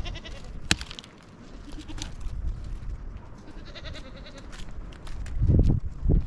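Goats bleating, with a pitched bleat about four seconds in, over the crackle and scrape of dry branches being gathered for firewood, including a sharp snap under a second in. Loud low rumbling thuds near the end as the long sticks are lifted.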